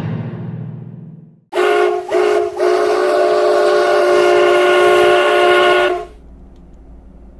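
Train horn sounding two short blasts, then one long blast of about three seconds, a steady two-tone chord. Before it, music fades out; after it comes a low steady rumble.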